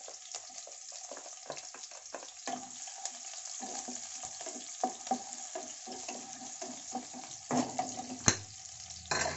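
Chopped onion and green vegetables sizzling in hot oil in a metal kadai, stirred with a wooden spatula that scrapes and knocks against the pan over and over. There is one sharper knock near the end.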